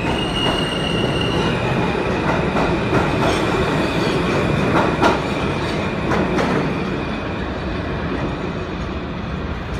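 New York City subway J train pulling out and running past, with a steady rumble, a high steady wheel squeal, and several sharp clicks from the wheels over rail joints in the middle. The sound eases off slightly over the last few seconds as the train moves away down the tunnel.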